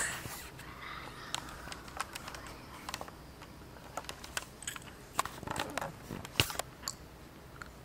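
Scattered, irregular light clicks and taps with faint rustling: a phone being handled and jostled while it films.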